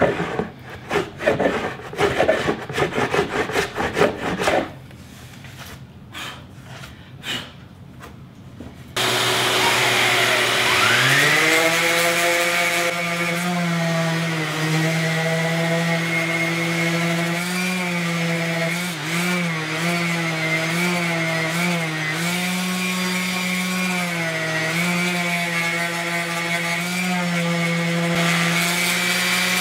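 Hand strokes rubbing back and forth across the oak door frame for the first few seconds. About nine seconds in, a DeWalt random orbit sander with a dust-extraction hose starts up; its motor whine rises over a couple of seconds, then runs steadily, wavering slightly in pitch as it is pressed onto the wood.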